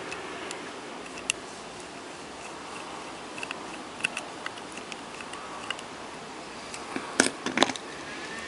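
A small screwdriver and tool tips clicking against a dynamic microphone's housing as the body is lined up and its screw driven in: scattered light ticks over a steady hiss, with a short cluster of louder clicks near the end.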